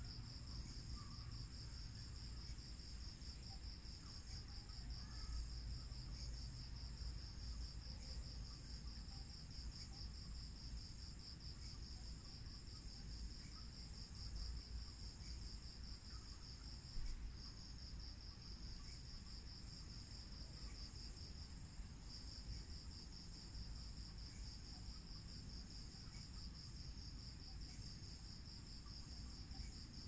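Night insect chorus of crickets trilling steadily in a fast, even pulse, with fainter higher trills above it, over a low background rumble. A single brief click comes about seventeen seconds in.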